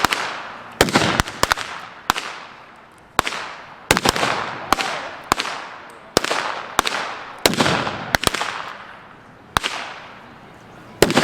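Guns firing blanks in a staged gunfight: an irregular volley of about fifteen sharp shots, some in quick pairs, each followed by a short echo.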